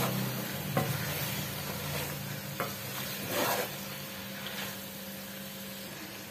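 A wooden spoon stirring okra, fried onions and mutton masala in a metal cooking pot, with a few sharp knocks of the spoon against the pot, over a steady sizzle of hot oil; the stirring grows quieter toward the end.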